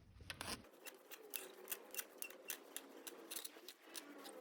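Stakesy SSF6 shrinker stretcher's shrinking jaws working 1.2 mm mild steel sheet: a run of short, sharp metal clicks at about three a second, starting under a second in.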